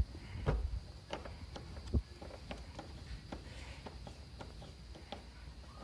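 Screwdriver turning a screw into a motorcycle's plastic body panel: scattered light clicks and taps at an uneven pace, with louder knocks about half a second and two seconds in.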